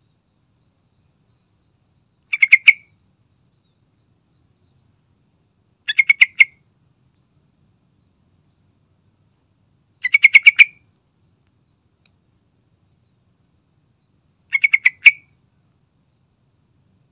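Yellow-vented bulbul singing four short phrases about four seconds apart, each a quick run of several loud notes.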